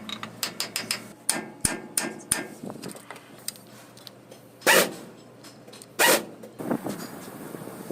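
A quick run of sharp knocks, like hammering, over the first couple of seconds, then two short, loud noisy bursts about a second and a half apart.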